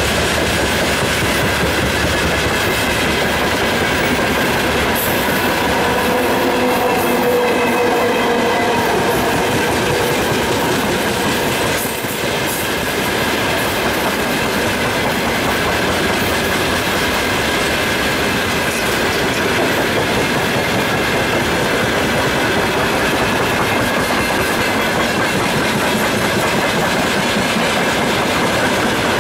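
Freight train wagons rolling past close by: a steady rumble with the clickety-clack of wheels over the rails.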